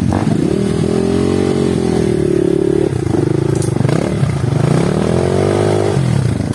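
Trail motorcycle engine running under throttle, its pitch climbing, holding, dipping about halfway through, then climbing again before easing off near the end.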